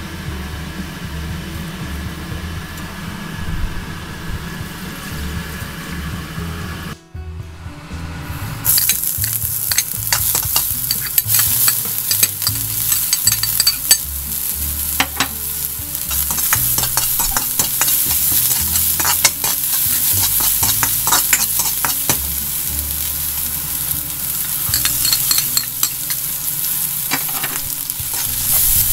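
Stir-frying in a wok: food sizzling loudly in hot oil, with frequent sharp clicks and scrapes of a spatula against the pan. The sizzling starts about nine seconds in, after a quieter stretch and a brief dropout.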